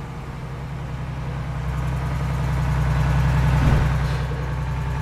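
A heavy engine or machine running steadily with a low hum, growing louder over the first few seconds and easing slightly near the end.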